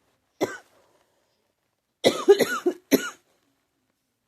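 A person coughing: one cough, then a run of several quick coughs in a row. The uploader says the cough comes from pneumonia and hurts.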